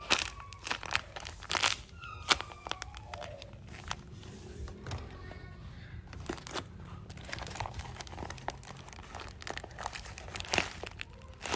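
Paper squishies being squeezed and handled, their paper shells crinkling in a run of short, irregular crackles.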